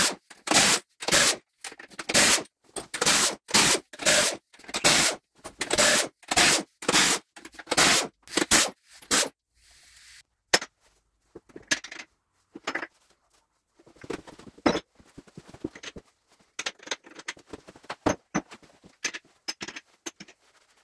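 Pneumatic impact wrench hammering in short repeated bursts, about two a second, undoing the main bearing cap nuts on a Gardner 6LXB diesel block. After a brief hiss about ten seconds in come scattered metallic clicks and knocks as the nuts and cast caps are handled and lifted off.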